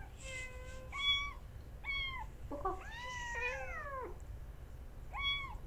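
Kittens mewing: about five short, high-pitched meows, two of them overlapping around three seconds in.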